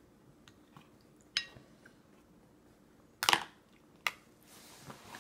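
Clinks and knocks of a child's feeding bowl and high-chair tray being handled at a meal: a short ringing clink about a second in, a loud cluster of knocks around three seconds in, and another knock soon after, then a soft rustle near the end.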